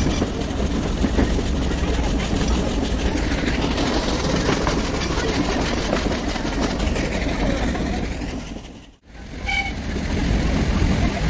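Nilgiri Mountain Railway train running on its track, a loud steady rumble and rattle of the carriages. The sound cuts out abruptly for a moment about nine seconds in, then comes back.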